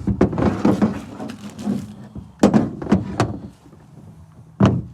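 Handling noise from a Tesla Cybertruck charging cord being pulled out and handled: a run of clatters and knocks, then a heavier thud near the end.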